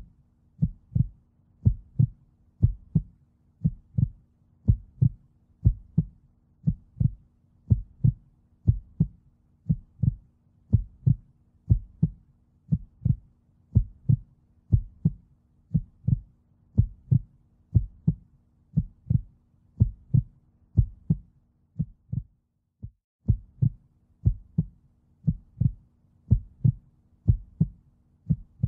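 Heartbeat sound effect: steady, evenly spaced double thumps over a faint low hum. There is a brief break about three quarters of the way through.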